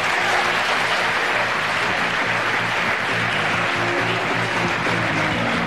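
Studio audience applauding over closing theme music.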